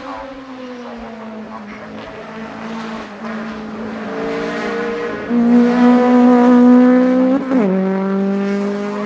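Race car engine under hard acceleration, its pitch climbing steadily and loudest a little past halfway. About seven and a half seconds in, a quick upshift drops the pitch sharply, and it starts climbing again in the next gear.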